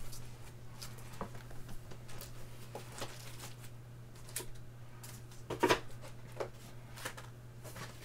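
Trading cards and their packaging being handled at a table: scattered light clicks and rustles, with one louder knock about five and a half seconds in, over a steady low electrical hum.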